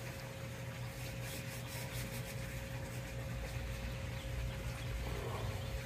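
Steady low background hum with a thin constant tone running through it; no distinct event stands out.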